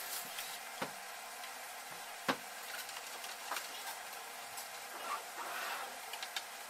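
A few sharp clicks and knocks of hard plastic, the loudest about two seconds in, and a short scraping rustle near the end, as the plastic cover of a Eumig R2000 film projector is worked loose and lifted off its base. A steady faint hiss lies underneath.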